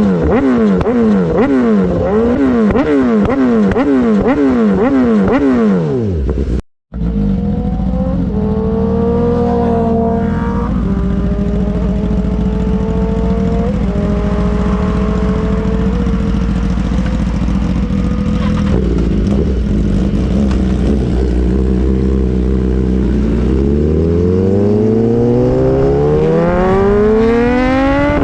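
BMW S1000RR's inline-four, fitted with an Austin Racing GP1R full-Inconel exhaust, revved in quick repeated throttle blips about once a second. After a sudden cut it pulls up through the gears, pitch rising and dropping at each shift, then holds steady and climbs hard again near the end.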